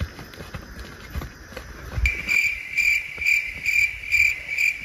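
An insect chirping in short, evenly spaced pulses, about two a second, starting suddenly about two seconds in; before it, only faint knocks and rustling.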